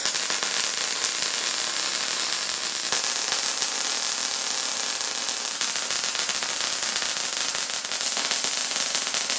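MIG welding arc tack-welding 1/4-inch steel plate: a steady, dense crackle throughout, its texture shifting slightly about three and five and a half seconds in.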